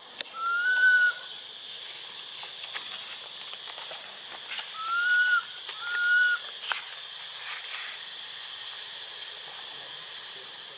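A steady, high, hissing insect drone from the forest canopy. Three short whistled calls, each slightly rising, come about half a second in and twice more around five and six seconds in. A few faint clicks are scattered through it.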